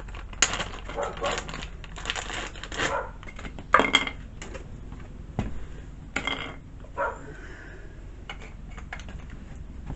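Handling of an aftermarket chainsaw air filter kit and its packaging: irregular clinks, clicks and rustles as the plastic bracket, filter and hardware are taken out and moved about.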